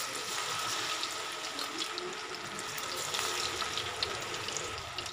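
Soya chunks deep-frying in hot oil: a steady sizzle with fine crackling throughout.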